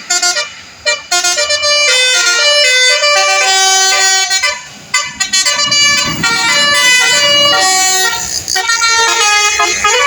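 Bus 'telolet' horn, a multi-tone air horn, playing a quick tune of short stepped notes, loud and continuous, with several notes sounding at once.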